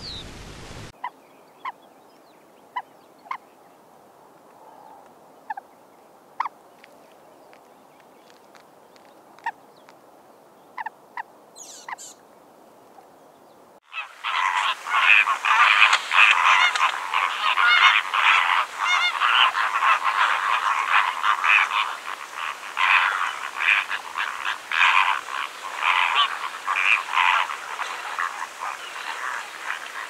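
A flock of flamingos calling, many overlapping honks in a dense, loud chatter that starts suddenly about halfway through. Before that, a quiet background with a few scattered short chirps or clicks.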